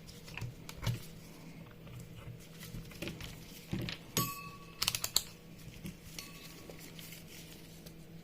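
A multimeter and its probes being handled on a workbench: scattered light clicks and taps, with a cluster of sharp clicks and a short faint beep about four seconds in.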